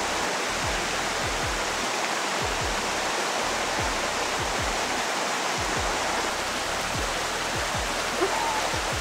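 Steady rushing of a small waterfall pouring over a rock ledge into a pool.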